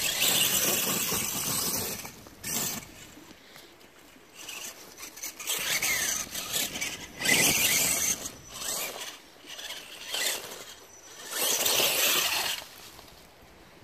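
RC rock bouncer's motor and geared transmission whining in repeated bursts of throttle, each a second or two long, as its tyres spin and claw up leafy dirt banks, throwing dirt.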